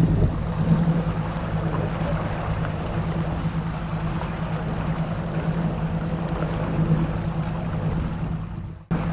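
Suzuki outboard motor running steadily at trolling speed, a constant low hum with the hiss of wake water and wind over it. It breaks off abruptly for an instant near the end, then carries on.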